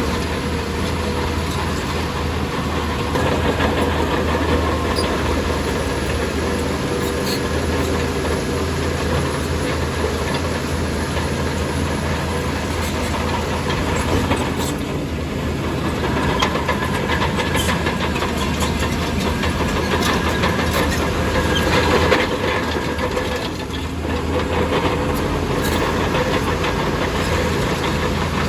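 Heavy diesel earthmoving machinery running steadily, with a deep engine drone and occasional sharp metallic clanks; it eases off briefly twice.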